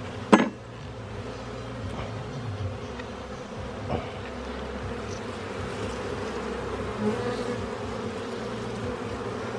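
Honeybees buzzing in a steady hum around an open hive box while frames are worked. A sharp knock stands out just after the start.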